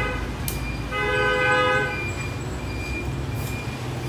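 Vehicle horn honking: a steady blast that stops just after the start, a second blast of about a second beginning about a second in, and a single sharp click between them, over a low traffic hum.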